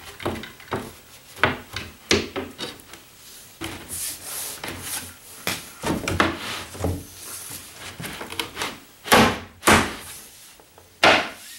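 Particleboard furniture panels knocking and rubbing as they are pushed together onto wooden dowels: a run of irregular knocks and short scrapes, the loudest two near the end.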